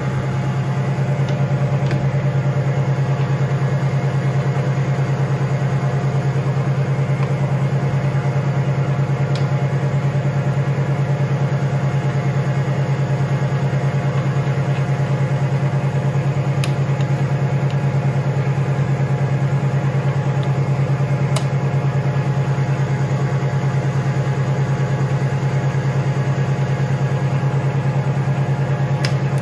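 Boxford AUD Model A metalworking lathe running steadily with no work in the chuck: a constant low hum from its motor and headstock gearing, with a few faint ticks.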